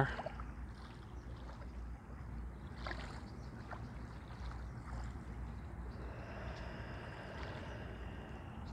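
Slow, deep yogic breathing through the nose, faint, over a steady low outdoor rumble.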